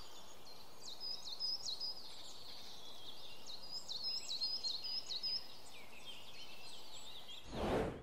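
Birds singing, a short high whistled phrase repeated again and again over a steady background hiss. Near the end comes a brief loud rush of low noise.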